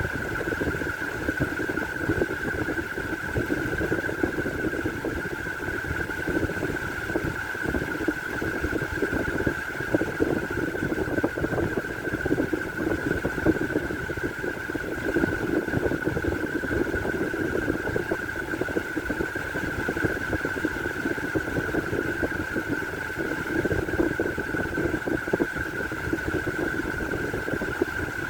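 Toofan electric stand fan running steadily: an even rush of air from the blades with a constant whine.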